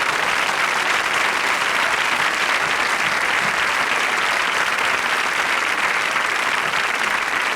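Studio audience applauding, a steady dense clapping that holds through the whole stretch.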